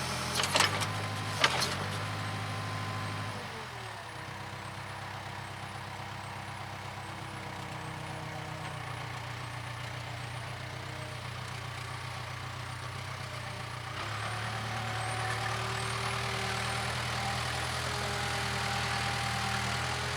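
Case 580K backhoe's four-cylinder diesel engine running, with a couple of sharp knocks in the first second and a half. The engine drops to a lower, quieter speed about three and a half seconds in, then picks up again about fourteen seconds in.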